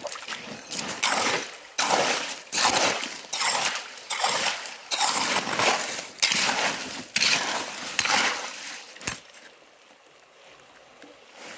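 A short-handled digging tool chops and scoops into wet creek gravel about twice a second, throwing gravel and water in splashes. It is digging out a metal-detector signal. The strokes stop near the end, after one last sharp knock.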